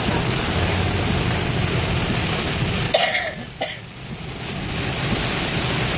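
Steady noise of heavy rain on the car and tyres on a waterlogged road, heard from inside the car. About three seconds in, someone coughs once, and the rain and road noise briefly drops for about a second before returning.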